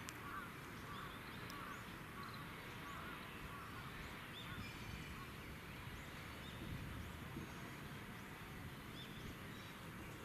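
Birds giving short, repeated chirping calls over a steady low background rumble.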